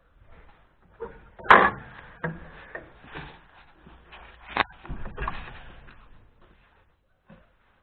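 Handling noise from a handheld camera: rustling and scraping as it is moved and brushed against a jacket, with knocks. The loudest is a sharp knock about a second and a half in, and a short click follows a little after halfway.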